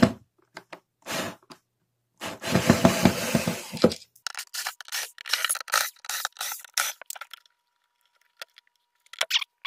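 Irregular scraping and cracking of hard parts being handled and pried: a loud stretch of scraping about two to four seconds in, then a quick run of short scrapes and knocks, and a faint steady tone near the end.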